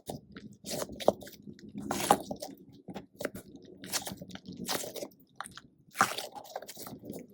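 Soft, sticky squishy toy being squeezed and pulled in the hands, giving irregular short sticky crackling squelches, roughly one a second.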